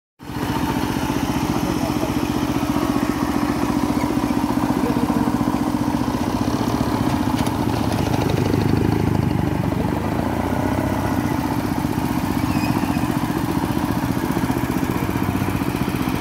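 Walk-behind power tiller's engine running steadily while it pulls a loaded trolley.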